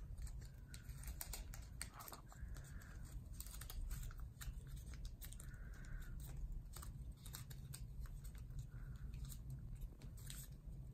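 Origami paper rustling and crinkling in the hands as flaps are folded up and creased, heard as faint scattered crackles and clicks.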